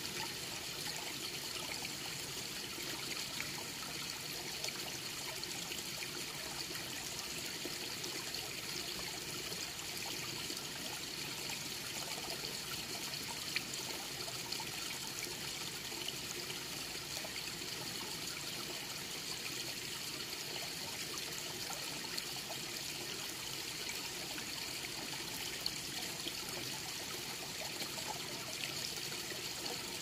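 Small mountain valley stream trickling and babbling over and between granite rocks, a steady continuous water sound.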